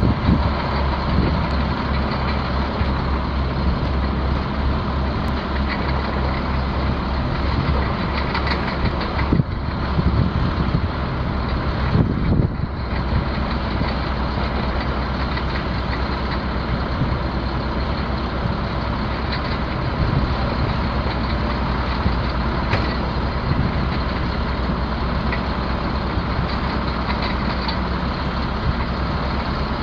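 Caterpillar C7 six-cylinder diesel engine of a Ford F650 water truck idling steadily. A couple of brief louder noises come about ten and twelve seconds in.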